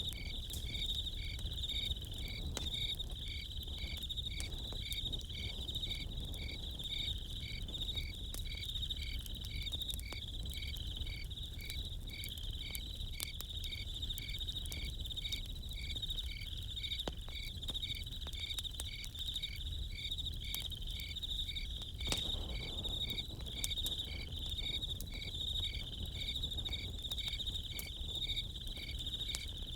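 Crickets chirping steadily, one as a continuous high trill and another in evenly spaced regular chirps, with occasional small crackles from a campfire.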